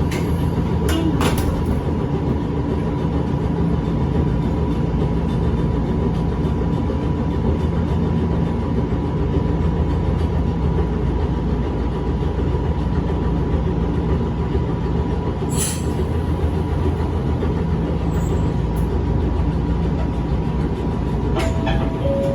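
Echizen Railway 5001-series railcar running along the track: a steady rumble with a thin held hum and a few sharp clicks.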